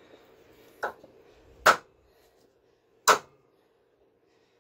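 A hammer striking a wooden block held on top of a cylinder liner in a Detroit Diesel 6V92 two-stroke block. There are three sharp knocks: a lighter one, then two hard ones about a second and a half apart, tapping the tight-fitting liner down to seat it in the bore.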